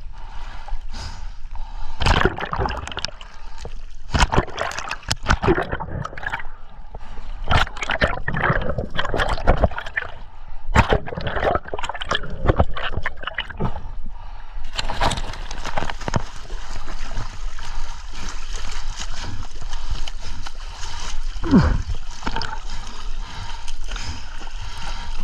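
Sea water splashing, sloshing and gurgling around a diver's action camera as it moves at and below the surface, in irregular sharp splashes at first, settling into a steadier rushing wash after about fifteen seconds.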